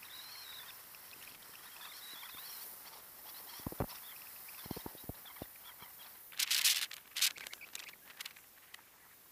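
Skis sliding over packed snow: a steady scraping hiss with scattered clicks and knocks, and a louder rasping scrape about six and a half seconds in.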